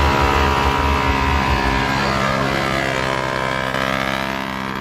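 A motor vehicle engine running at a steady pitch, slowly growing fainter toward the end.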